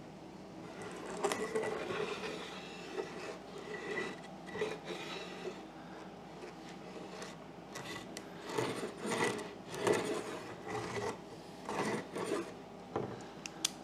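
A wooden compass jig swinging around a screw pivot across a plywood sheet while a ballpoint pen in its end traces a circle: wood rubbing and scraping on plywood in irregular strokes.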